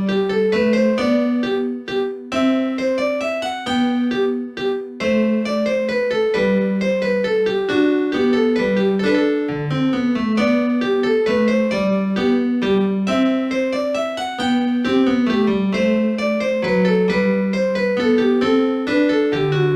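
Samsung SCH-E100 phone ringtone played as MIDI with a piano sound: a steady two-part tune, a moving melody over a bass line.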